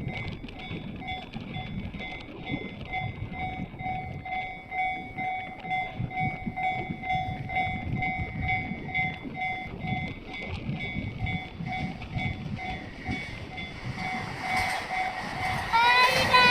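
Japanese railway level-crossing alarm ringing, a repeating electronic ding, with strong wind buffeting the microphone. A louder sound with rising pitch cuts in near the end.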